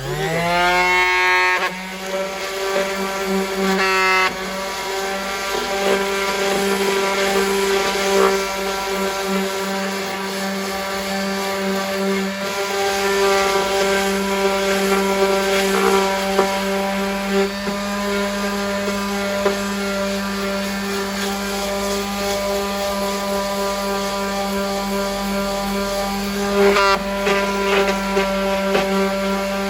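Electric palm sander with 60-grit paper switching on, its motor whining up to speed within about a second, then running steadily while sanding down fiberglass body filler.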